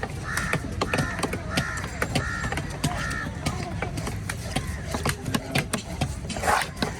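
Crows cawing, about five caws in a row in the first three seconds and another near the end, over frequent sharp knocks and the clatter of a busy market.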